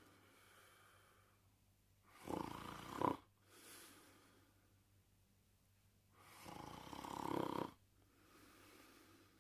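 Snoring in sleep: two loud snores, each about a second long and about four seconds apart, with quieter breaths between them.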